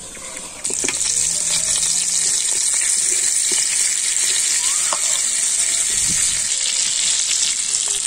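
Lamb steaks, fried potatoes and tomato halves sizzling loudly in hot fat in a wide black pan. The steady hiss starts suddenly about a second in.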